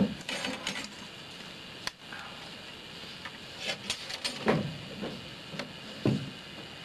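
Scattered clicks, taps and a couple of dull thumps from muzzle-loading long guns being handled and loaded at a wooden bench.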